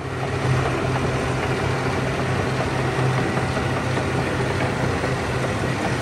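Caterpillar D9T crawler bulldozer's diesel engine running steadily as the machine pushes earth, with a deep, even hum.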